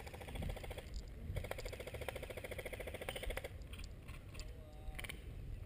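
Faint, rapid, even clatter of an airsoft electric gun firing full-auto, in two long bursts with a short break about a second in, then a few single clicks near the end.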